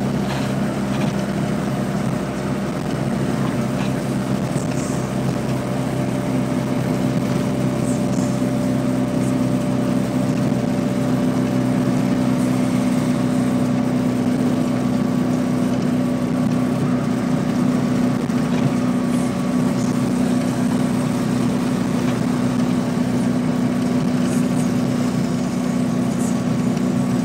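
Fiat 126p's small rear-mounted two-cylinder engine droning steadily at highway cruising speed, with road and wind noise, heard from inside the cabin.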